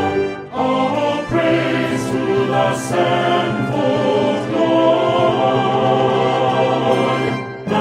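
Choral music from a ritual oratorio: a choir singing sustained chords, with short breaks between phrases about half a second in and just before the end.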